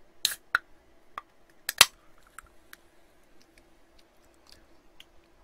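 Aluminium soda can being opened: a few sharp clicks as the pull tab is worked, with the loudest crack a little under two seconds in, followed by lighter ticks.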